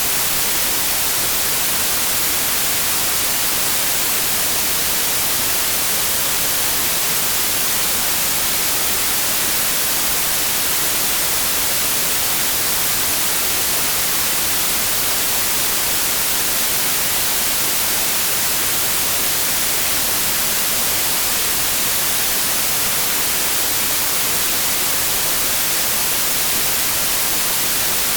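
Steady synthetic white noise: an even, unchanging hiss, strongest in the high frequencies.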